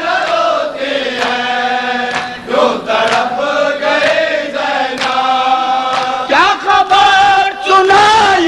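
Male voices chanting a noha, an Urdu mourning lament, in unison, with long held and wavering notes. Sharp slaps from mourners beating their chests in matam cut through the chant.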